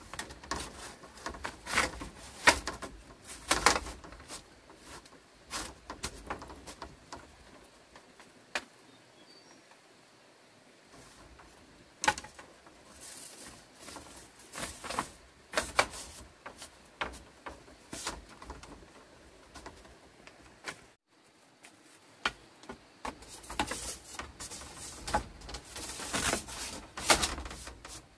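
Bamboo poles and split slats knocking and clattering against each other and the wall frame as they are handled and fitted, in irregular sharp knocks with a quieter stretch partway through.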